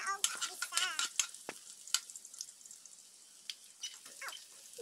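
Food frying in hot oil in a steel wok: a steady sizzle with sharp crackles and pops. The pops are thickest in the first couple of seconds, just after the pieces go in, and thin out toward the end.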